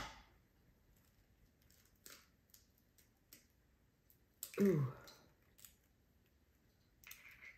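Faint small clicks and scrapes of eggshell halves as an egg is separated by hand over a glass bowl, the yolk passed back and forth between the shells. It opens on the tail of the egg being cracked.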